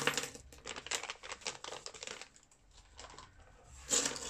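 Coins tipped out of a zippered fabric pouch and handled on a tabletop: a run of light clicks and rustles that thins out about two seconds in, with a short rustle near the end.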